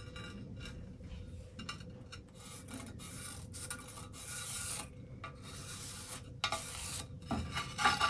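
A marker pen drawn along a steel flat bar lying on a steel plate, marking the bar out: a run of short, irregular rubbing strokes, each under a second long, the strongest about halfway through.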